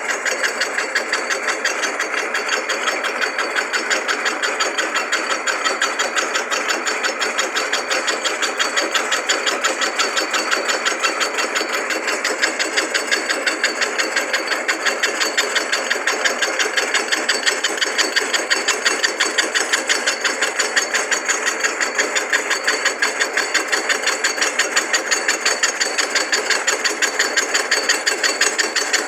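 Drill-press head rigged on a lathe as a milling spindle, its motor running while the cutter takes a facing cut across a small-block Chevy cylinder head on power feed. The cut gives a rapid, even ticking throughout.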